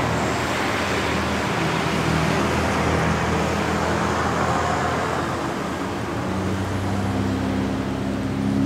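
Four-wheel-drive vehicles driving past across a bridge, their engines running steadily one after another. A new, deeper engine note comes in about six seconds in and grows louder toward the end.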